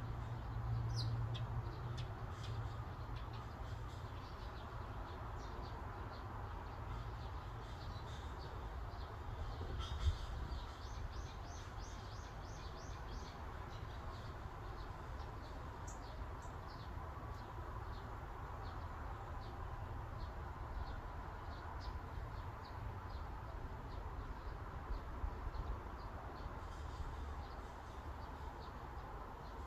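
Forest ambience: a steady breeze-like rush with small birds chirping and twittering above it, including a quick run of repeated notes about a third of the way in.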